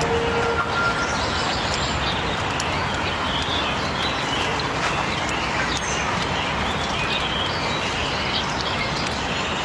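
Birds chirping over a steady rushing outdoor background noise.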